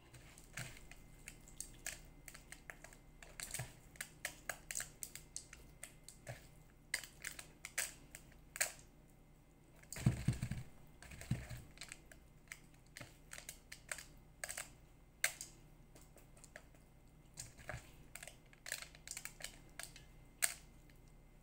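Hands scooping rice-and-herb stuffing from a stainless steel bowl and packing it into a long green pepper: a run of irregular light clicks and taps, with a duller knock about ten seconds in.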